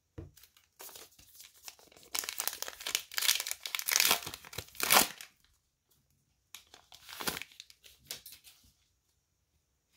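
A baseball card pack wrapper being torn open and crinkled by hand, loudest about two to five seconds in. A few softer crinkles follow a second or so later, then it goes quiet.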